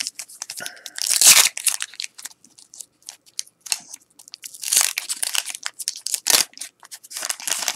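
A 1989 Topps football wax pack being torn open by hand: crackly tearing and crinkling of the waxed-paper wrapper in several bursts, the loudest about a second in.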